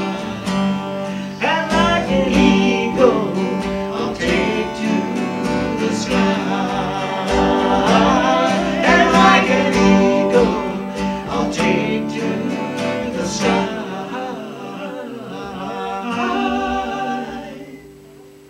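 Two acoustic guitars strumming and picking the close of a gospel song, with a man's voice singing along. The music dies away near the end.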